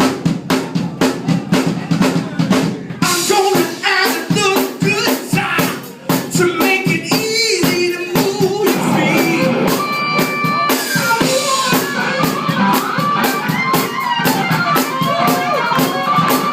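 Music with a drum-kit beat and singing; the drums play alone for about the first three seconds before the voices come in.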